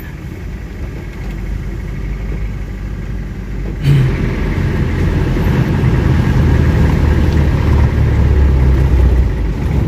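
Motor vehicle engine running steadily in stop-and-go traffic, getting suddenly louder about four seconds in and staying louder.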